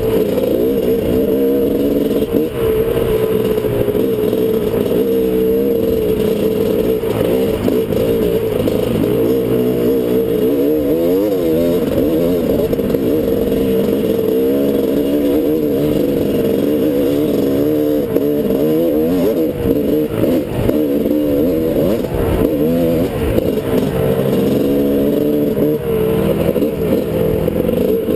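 Dirt bike engine running close by and muffled, its pitch rising and falling constantly as the throttle opens and closes.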